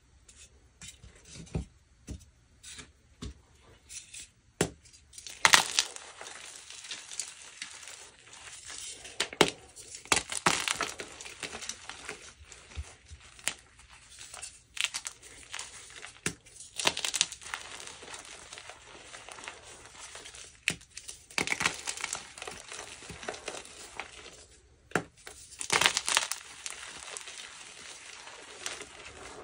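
Dark-blue dyed BSN gym chalk being crushed and crumbled, a crisp crunching crackle. It starts with a few sharp separate snaps, then runs on as dense crumbling that swells and fades several times.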